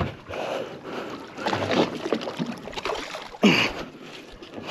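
Water splashing and sloshing beside a small inflatable boat as a hooked mahi mahi is brought alongside and lifted at the surface, with wind on the microphone and a brief louder burst about three and a half seconds in.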